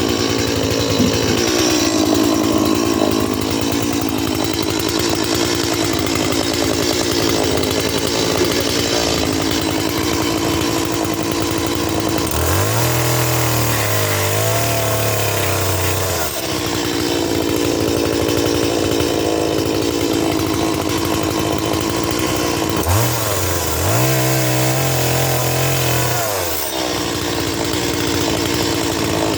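Stihl Mini Boss two-stroke chainsaw running at a steady low speed. It is throttled up to a high rev twice, each time for about four seconds, first about twelve seconds in and again about twenty-three seconds in.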